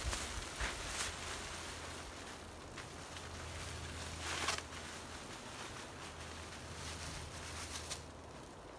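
Thin clear plastic sheeting crinkling and rustling as it is pulled and spread by hand, with a few louder rustles when it is tugged.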